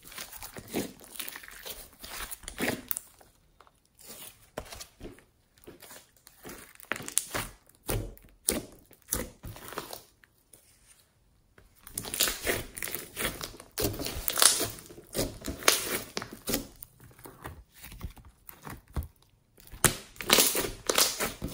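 Glossy slime being kneaded, stretched and pressed by hand: a stream of irregular wet crackles, squelches and pops, coming in bursts with a few short pauses.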